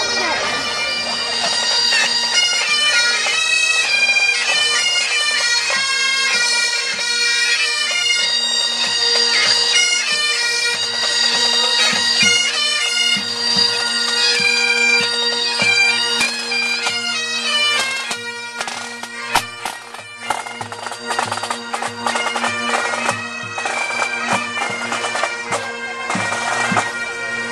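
A pipe band marching past: Highland bagpipes play a tune over their steady drones, with the band's drums beating, more densely in the second half.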